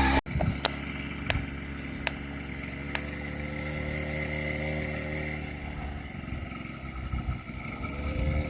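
Small Eton Viper Jr 40cc youth ATV engine running steadily at part throttle. Its pitch eases off and picks up again near the end. A few sharp clicks come in the first three seconds.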